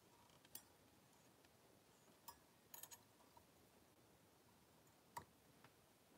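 Near silence broken by a handful of faint, sharp clicks and ticks from small fly-tying tools being handled at the vise, a little cluster of them near the middle and the sharpest about five seconds in.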